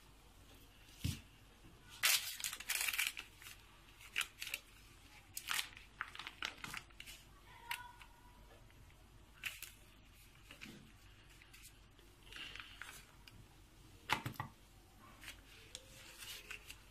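Scattered short handling noises and light knocks from pastry and filling being cut and shaped by hand on a kitchen counter. The loudest are a cluster about two to three seconds in and a sharp knock about fourteen seconds in.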